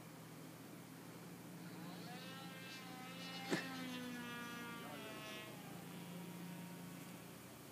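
Small model airplane glow engine, an NV (Norvel) .074, buzzing high up in flight. Its pitch rises and then falls as the plane passes, with a single sharp click about halfway through.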